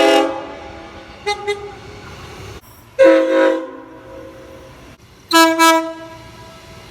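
Train horn sounding a series of short blasts: one at the start, two quick toots, a longer blast, then two more quick blasts. Each note is a chord of several tones and echoes briefly after it cuts off.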